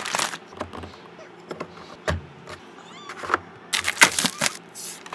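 Plastic toy parts and packaging handled close up: scattered light clicks and taps, a sharper knock about two seconds in, then a run of plastic film crinkling near the end.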